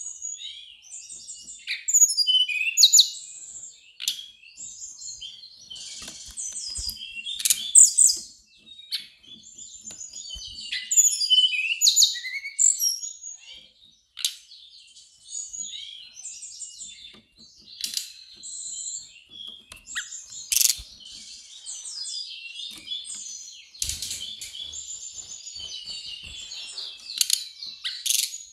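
Brown-chested jungle flycatcher singing: a fast, varied song of high chirps, twitters and trills in bursts with short pauses.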